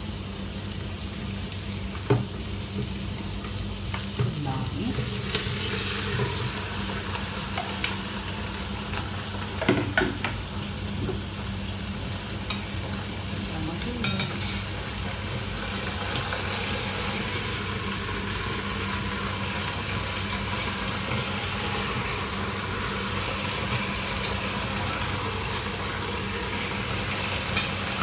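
Chicken wings sizzling in hot oil in a deep stainless-steel pot, with a few sharp metal clinks of tongs against the pot as pieces are added and turned. The sizzle grows louder about halfway through.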